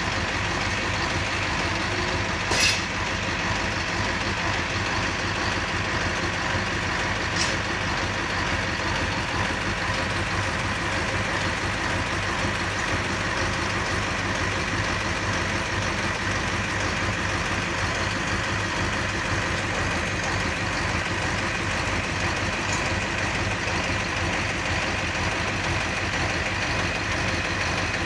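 Heavy engine of the crane hoisting the car, running steadily at idle. A short sharp click comes about two and a half seconds in, and a fainter one at about seven seconds.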